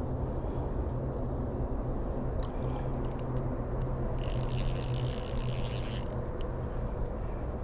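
Spinning fishing reel being cranked in a steady run of about two seconds, starting and stopping sharply, while a hooked fish is played on light 4-pound line. A few faint clicks and a steady low outdoor rumble lie underneath.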